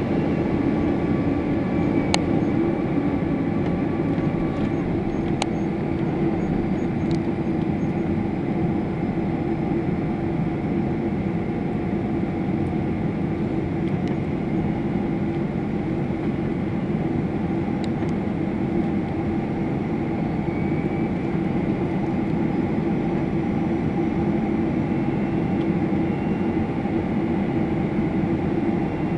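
Steady cabin noise of a Boeing 777-300 airliner in flight, heard from a window seat over the wing: an even rush of jet engine drone and airflow with a constant low hum.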